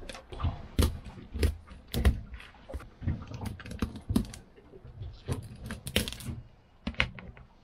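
Irregular clicks, taps and knocks of a knife and raw lobster tails against a hard plastic plate, with shell crackling, as the tails are deveined.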